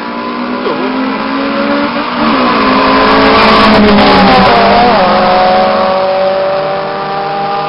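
Drag-racing car engines at full throttle accelerating past, the engine note climbing with a brief dip at each gear change. It is loudest as the cars pass about four seconds in, then fades as they pull away.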